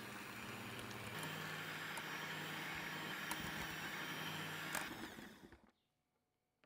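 Electric hand mixer running, its twin wire beaters whipping a cream mixture in a glass bowl, with a few sharp ticks of the beaters against the glass. The motor note shifts about a second in, and near the end the mixer is switched off and winds down.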